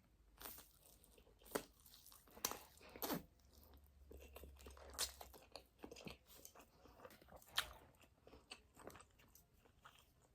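Close-miked mouth sounds of a person eating spicy noodles: quiet chewing and biting with scattered short, sharp clicks and smacks.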